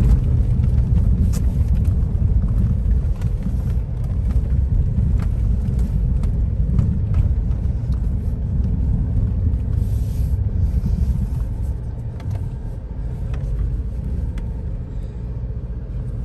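Inside the cabin of a Ford Bronco driving along a dirt trail: a steady low rumble of engine and tyres, with occasional light knocks from the rough track.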